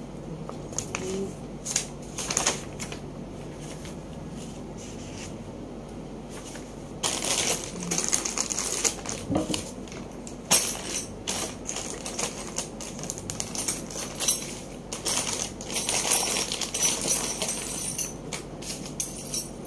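Small plastic bags of furniture hardware being handled and opened: rustling plastic with many small clicks and clinks of metal screws and washers. There are only a few scattered clicks at first, and it becomes busy about seven seconds in.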